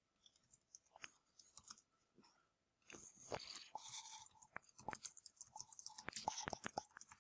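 Faint computer keyboard typing: a few scattered key clicks, then a quick run of keystrokes from about three seconds in.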